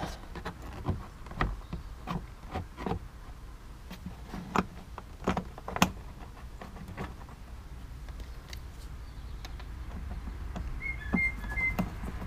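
Scattered clicks and taps of a fog-lamp unit being worked by hand into its opening in a Mercedes SLK's front bumper, most of them in the first half. Near the end come three short high chirps.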